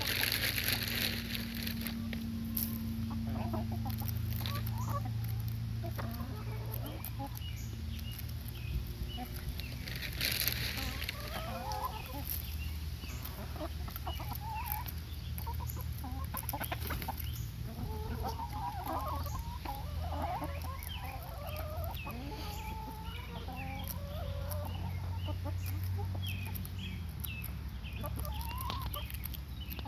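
A flock of chickens clucking and calling with many short, overlapping calls while they feed, with scattered short clicks. Brief rushes of hissing noise come near the start and again about ten seconds in.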